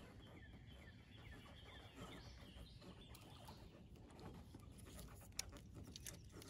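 Near silence with faint outdoor bird calls, a run of short calls in the first half, and a single light click about five and a half seconds in.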